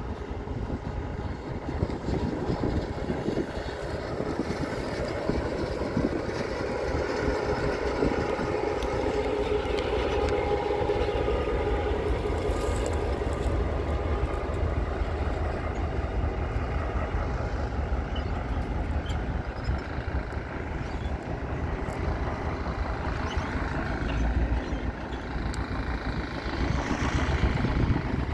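Watco Australia diesel locomotive HL203 chugging along at low speed: a steady engine drone with a low rumble as it moves past and on down the track.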